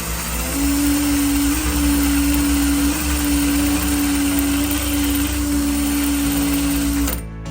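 A small electric motor runs with a steady hum over a loud hiss, like a handheld power tool or grinder, then cuts off suddenly near the end.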